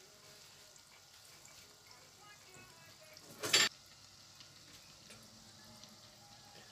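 Donuts deep-frying in hot oil: a steady faint sizzle, with a brief loud rush of noise about three and a half seconds in.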